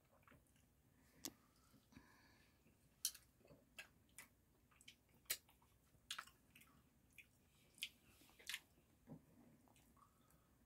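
A person chewing soft slices of smoked salmon close to the microphone: scattered wet mouth clicks and smacks, about a dozen sharp ones spread irregularly, over a faint background.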